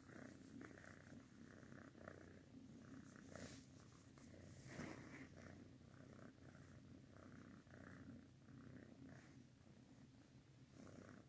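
Domestic cat purring faintly and steadily while being petted.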